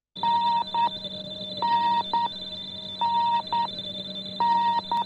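Interval signal of a shortwave numbers station: a pair of electronic beeps, one long and one short, repeating four times about every second and a half, over a steady whine and hum with radio noise.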